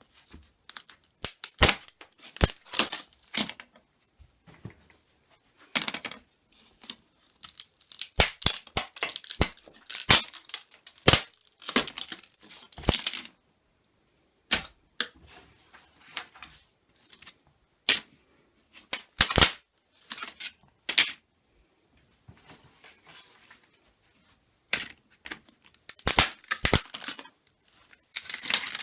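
Handling noise: irregular sharp clicks and taps mixed with short bursts of rustling and scraping, close to the microphone, with quiet gaps between them.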